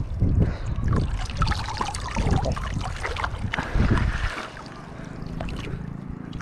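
Seawater splashing and sloshing in shallow water, with wind buffeting the microphone in low rumbles for the first four seconds, after which it settles to a quieter wash.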